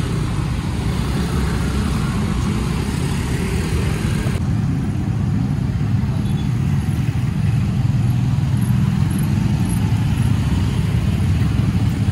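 Road traffic, mostly motor scooters and small motorcycles, running and riding slowly past close by: a steady, continuous low engine noise.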